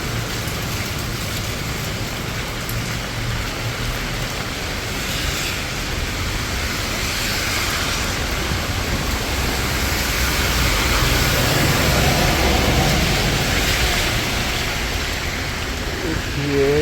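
Steady heavy rain falling on the street, an even hiss that swells louder about two-thirds of the way through and then eases.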